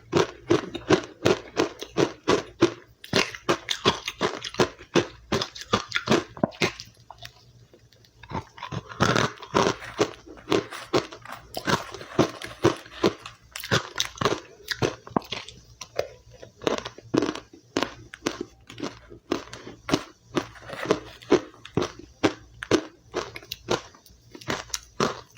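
Close-up crunching and chewing of powdery white ice, bite after bite in quick irregular crunches, with a short lull about seven seconds in before the crunching picks up again.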